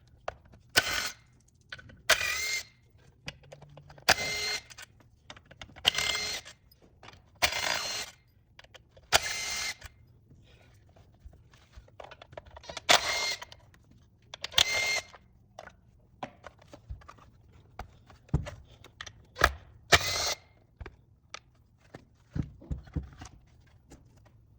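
A small electric driver running in short bursts, about ten of them under a second each, backing screws and bolts out of the engine casing during the teardown. Light clicks and clinks of parts being handled come between the bursts.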